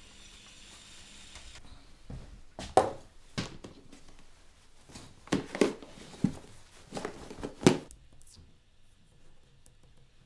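A run of knocks and clunks from a baking dish and oven mitts being handled in a kitchen, about seven sharp sounds spread over several seconds.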